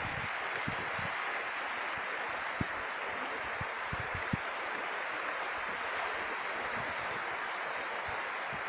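Steady rushing of a shallow river flowing over stones, with a few soft low thumps.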